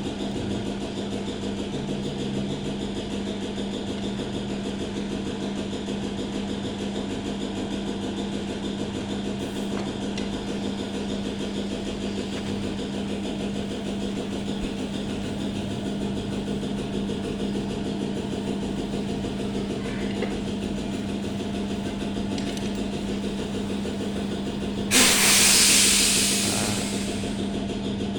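Motorcycle engine idling steadily with an even pulse. About 25 seconds in, a loud hiss bursts out over the engine and fades within a couple of seconds.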